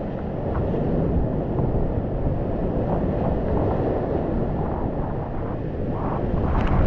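Whitewater rapids of a glacier-fed alpine river at flood stage, heard from a kayak running through them: a loud, steady rush of water splashing around the boat and paddle, with wind noise on the microphone. The water noise surges louder near the end.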